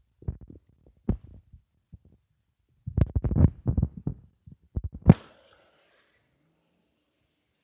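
Handling noise on a phone microphone: irregular low thumps and knocks as the phone is carried and jostled, thickest about three seconds in. About five seconds in comes one loud knock, followed by a rushing scrape that fades over about a second and a half.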